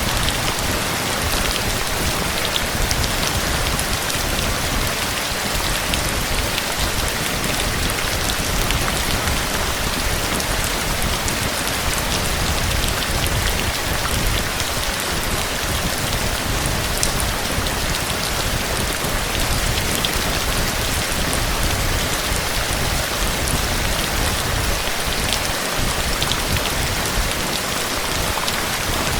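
Steady heavy rain falling and pattering on surfaces, with scattered individual drops ticking.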